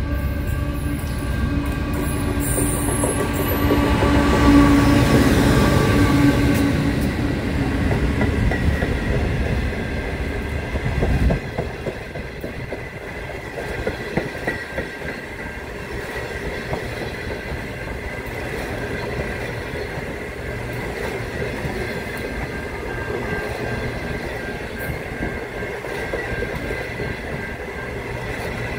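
The Indian Pacific passenger train passing close by. The diesel locomotive's engine is loudest over the first eleven seconds and drops away suddenly. After that the stainless-steel carriages roll past with a rhythmic clickety-clack of wheels over the rail joints and a thin, steady wheel squeal.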